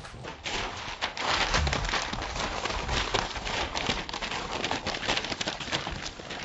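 Newspaper crinkling and rustling under the scrabbling paws of a litter of Rottweiler–Australian Shepherd mix puppies: a dense, uneven patter of small clicks and paper noise that gets louder about a second in.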